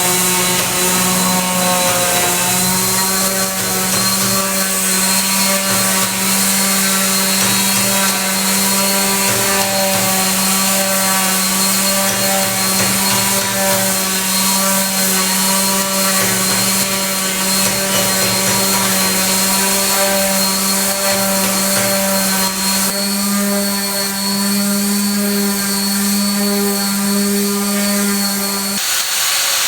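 A power tool's motor running steadily at one pitch. It grows louder about three-quarters of the way through and cuts off abruptly near the end.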